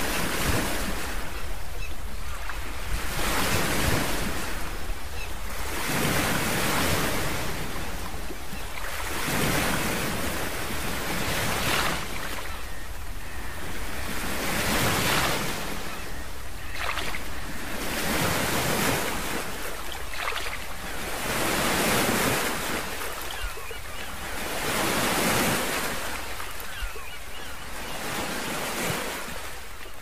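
Ocean waves washing ashore, a steady hiss of surf that swells and falls about every three seconds.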